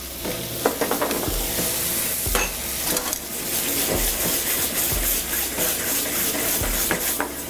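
Bourbon-bacon gravy with peppers and onions sizzling in a skillet while metal tongs stir it, scraping and clinking against the pan now and then.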